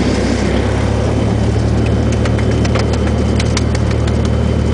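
Cessna 172's piston engine running at idle with a steady low hum, heard from inside the cabin during the landing roll. A high rush of airflow fades about half a second in, and light clicks come from about 1.5 s to just past 4 s.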